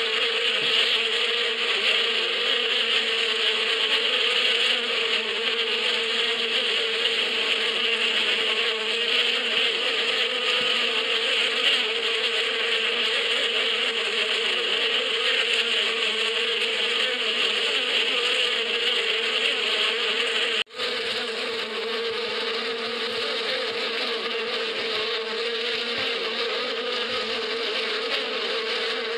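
Steady, dense buzzing hum of a great many honeybees flying in the air around their hive. The hum cuts out for an instant about two-thirds of the way through, then carries on slightly quieter.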